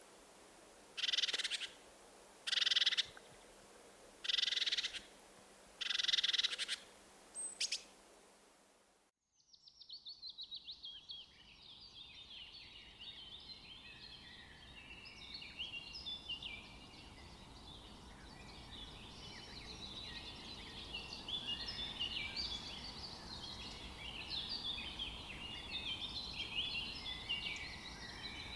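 Four short raspy calls, about a second and a half apart, with a few thin high chirps between them. After an abrupt cut, a dense chorus of many birds chirping and twittering builds up and carries on.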